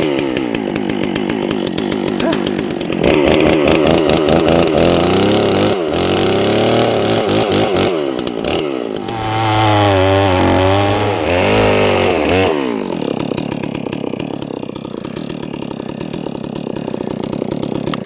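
Holzfforma G660 two-stroke chainsaw running at full throttle and cutting through a red oak log, its engine pitch sagging and recovering under load. About twelve seconds in it eases off and runs on quieter.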